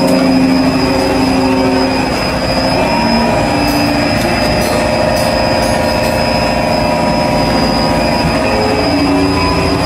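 Loud, steady drone of running machinery in a plant room, with several steady hums that shift in pitch now and then and a few faint clicks about four to six seconds in.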